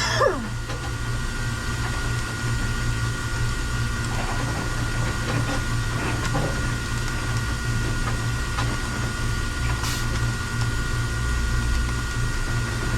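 Steady machine hum with a few steady tones, like equipment fans or air handling in a small room, with a faint click about ten seconds in.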